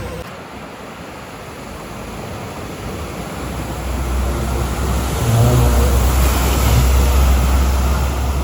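A car driving through floodwater, with engine rumble and rushing water growing louder as it approaches. It is loudest about five to seven seconds in, then eases off slightly.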